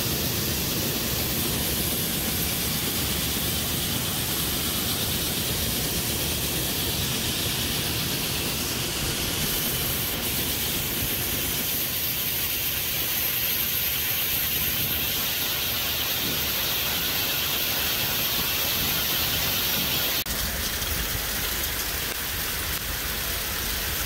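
Shelled corn pouring from a grain auger into a steel grain bin: a steady hissing rush of falling kernels. About twenty seconds in, a low rumble comes up under the hiss.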